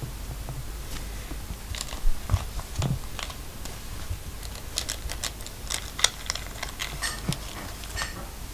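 Irregular light clicks and taps from a furry toy mouse being handled on a woven rug, growing denser about halfway through, with a couple of soft thumps early on.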